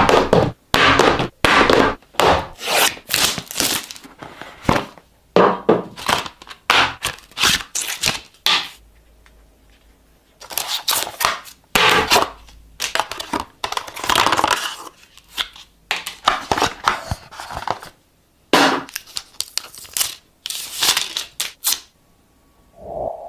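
Packaging being handled and opened: plastic film tearing and crinkling and the cardboard box rustling and knocking, in a run of short loud bursts with brief pauses. Near the end a faint steady tone starts.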